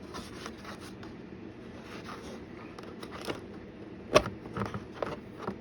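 Kitchen knives and their carry case being handled: a run of small clicks and scrapes, with one sharp knock a little over four seconds in and a few lighter knocks after it.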